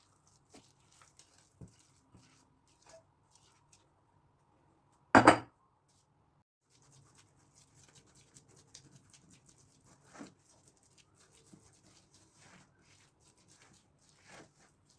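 Kitchen handling noises: scattered light clicks and taps of utensils and dishes, with one loud knock about five seconds in.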